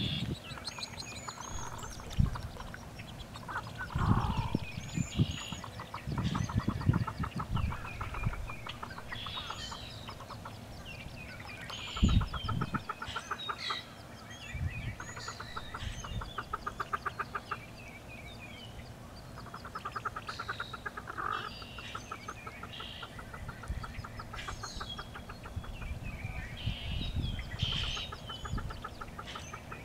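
Hooded merganser hen calling to her brood with runs of rapid clucks, repeated every few seconds, amid scattered high peeps and chirps. A few low thumps come in the first half.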